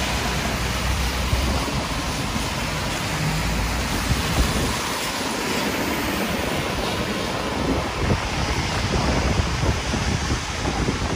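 Heavy rain falling steadily, with wind rumbling and buffeting the microphone in gusts that get stronger in the second half.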